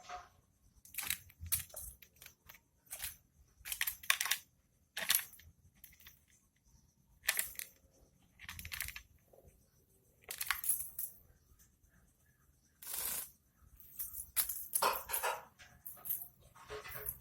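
A lory bathing: short, irregular splashes and flutters of water, about a dozen spread out with quiet gaps between.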